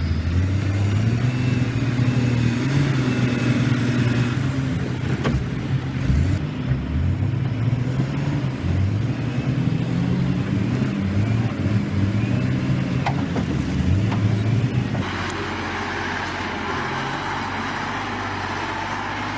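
Heavy diesel engine of a Caterpillar 980G wheel loader working, its pitch rising and falling as it takes load. About 15 seconds in, the sound cuts abruptly to a steadier engine drone with more hiss.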